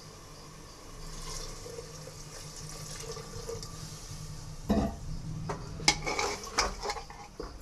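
Water being poured into a pressure cooker over the rice for matar pulao, a steady running, filling sound. From about four and a half seconds in come several sharp knocks and clatters.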